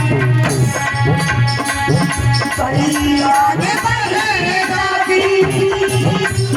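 Indian folk song accompaniment between sung lines: a melodic instrument playing bending phrases over tabla and light rattling percussion.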